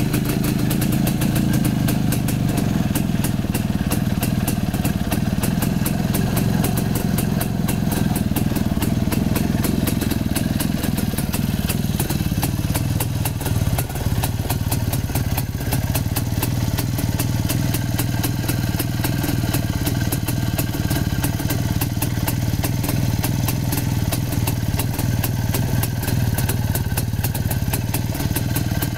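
Jawa 250 type 353's single-cylinder two-stroke engine running steadily, with a rapid exhaust beat. About twelve seconds in, the note drops slightly and settles lower.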